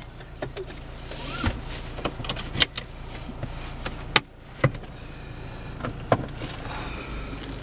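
Steady low hum of a diesel car engine running, heard from inside the cabin, with several sharp clicks and knocks scattered through.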